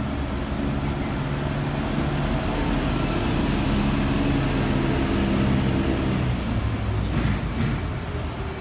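City route bus's diesel engine idling steadily at a standstill, with a brief hiss and faint clicks near the end.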